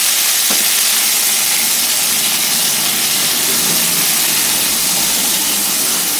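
Freshly washed raw mango pieces sizzling in hot mustard oil just after going into the pan, a loud steady hiss of frying, with one light knock about half a second in.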